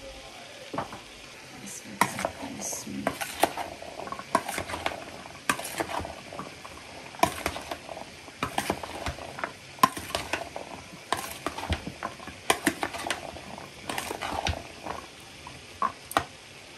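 A metal spoon stirring and mixing seasoned potatoes, scraping and clinking against the dish many times at an irregular pace, over a faint steady hiss.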